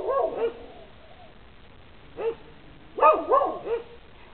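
Dogs barking in short volleys: the last two or three barks of a volley at the start, a single bark a little past two seconds in, then a quick run of about four barks around three seconds in.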